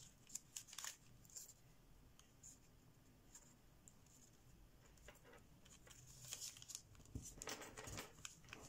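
Faint rustling and crackling of thin kami origami paper being folded and creased by hand: a few soft crackles in the first second, a quieter stretch, then a cluster of crackles near the end.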